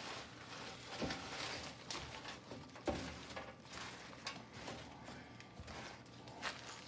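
Crumpled paper towel wiping and scrubbing crumbs and crusted grime off an enamel gas stovetop: faint, irregular rustling and scraping strokes, with a couple of sharper taps about one and three seconds in.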